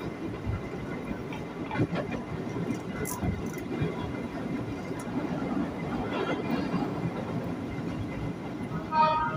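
Ex-JR 205 series electric commuter train running, heard from inside the carriage: a steady rumble of wheels on rail with scattered clicks over the rail joints. A brief pitched tone sounds near the end.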